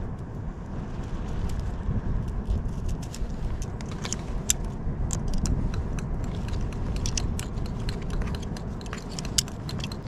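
Wind buffeting the microphone in a steady low rumble, with scattered light clicks and rattles of handled fishing gear.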